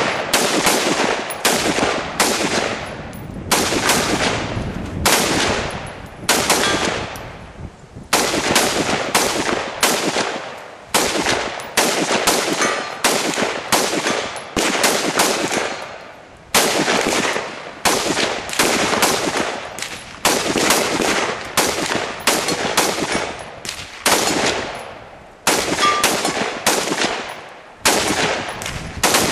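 Two shooters firing semi-automatic guns, one of them an AR-style rifle: a long string of single shots at uneven spacing, often in quick pairs, each with a fading echo.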